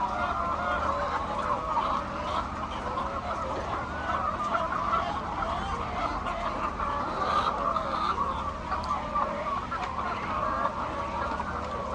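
A large flock of hens clucking together, a dense, continuous chorus of overlapping calls.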